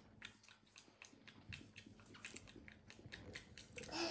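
Faint eating sounds at a dinner table: chewing, and many small irregular clicks of forks and spoons against plates and bowls.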